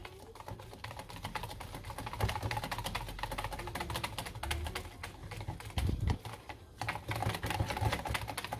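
Wire balloon whisk beating potato and wheat flour into milk in a plastic measuring jug: fast, continuous clicking of the wires against the jug's sides, with a few dull low knocks.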